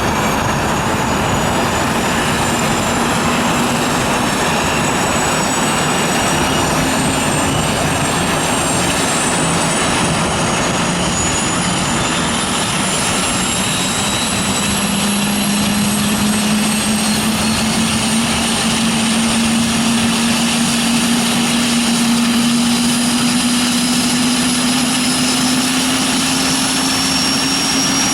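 Eurocopter EC-145 twin-turbine helicopter running steadily, its rotor and turbine noise loud. A hum and a high turbine whine rise slowly in pitch throughout.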